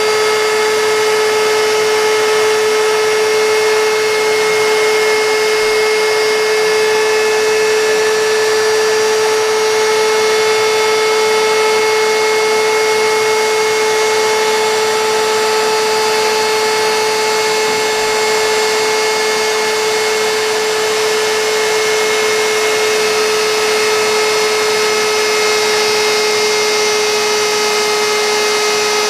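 CNC router spindle running at a constant speed, a steady high whine of one unchanging pitch over the noise of the bit cutting wood.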